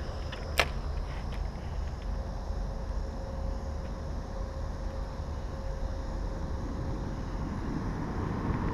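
Steady low outdoor rumble, with one sharp click about half a second in and a faint steady hum for a few seconds in the middle.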